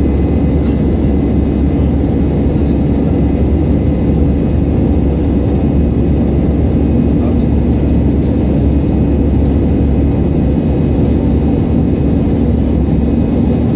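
Airbus A320 airliner in its climb after takeoff, heard inside the cabin: a loud, steady drone of jet engines and air rushing past the fuselage, with a low hum underneath.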